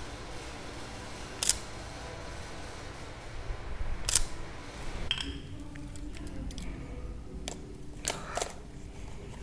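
Mirrorless camera's shutter firing twice, about two and a half seconds apart, each a single sharp click. Later come a few small clicks of the camera and lens being handled.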